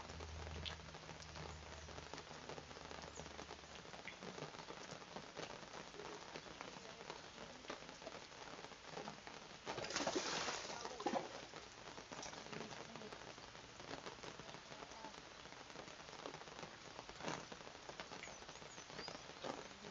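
Steady rain pattering, with many small drop ticks, and a brief louder burst of noise about halfway through.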